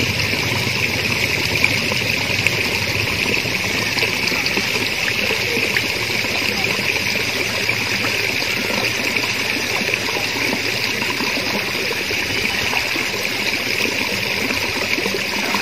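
Steady sound of flowing water running over rocks, with an even high hiss throughout.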